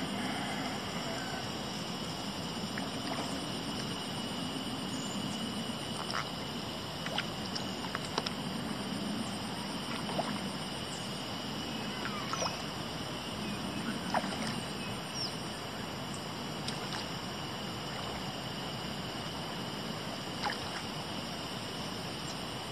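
Steady rush of flowing river water with a constant high-pitched hum over it, broken by scattered short clicks and chirps.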